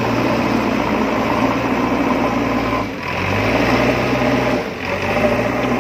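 Battery-powered toy wheel loader's small electric gear motors whirring steadily as it lifts its bucket, the sound dipping briefly about three seconds in and again near five seconds.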